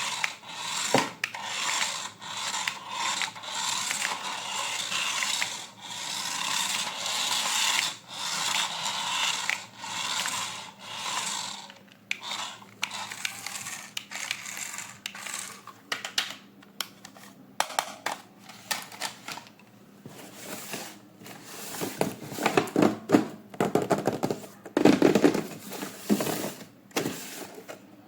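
Toys and their packaging being handled: scraping, rubbing and clicking of plastic parts, with a faint steady hum for the first two-thirds, then louder knocks and handling bumps near the end.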